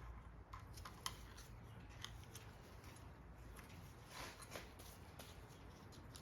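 Faint, scattered clicks and a light scraping rustle of metal engine parts and tools being handled, over a low steady hum.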